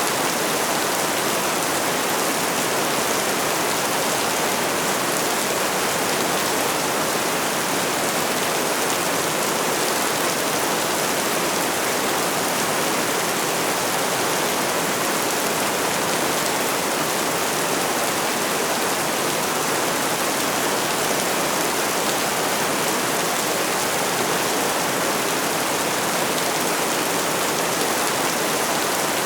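Steady rainfall: an even, unbroken hiss of rain with no single drops or gusts standing out.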